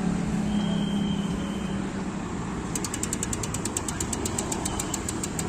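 Bicycle rear freehub ratchet ticking rapidly and evenly, about eight clicks a second, starting about halfway through as the rear wheel or crank turns; steady traffic hum behind it.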